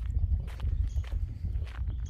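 Footsteps of a person walking along a dirt trail, an irregular series of short crunching steps.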